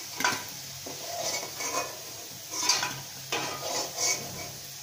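Metal spatula scraping and clinking against a kadai in several short strokes as fried lentil dumplings are lifted out of hot oil, with the oil sizzling underneath.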